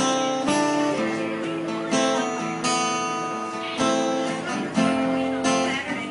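Acoustic guitar strumming chords in a steady rhythm, the instrumental lead-in of a song before the vocal comes in.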